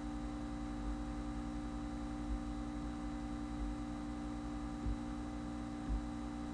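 Steady electrical hum on the recording, with a low rumble underneath and two faint soft bumps about five and six seconds in.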